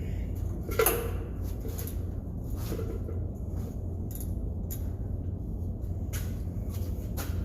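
Tools being handled under a car during an oil change: one sharp knock about a second in, then scattered light clicks and taps, over a steady low hum.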